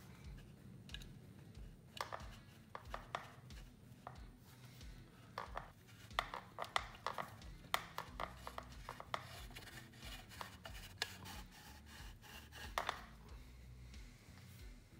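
Irregular metallic clicks, taps and scrapes of a wrench and steel parts being worked on a motorcycle's front fork yoke, some in quick runs, as the fork bolts are fitted and tightened.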